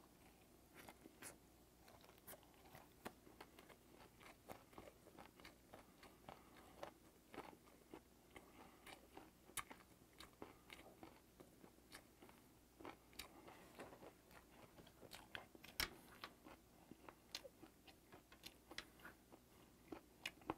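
Faint chewing of steamed ray wing: irregular wet mouth clicks and small crunches, several a second, with one sharper click about three quarters of the way through.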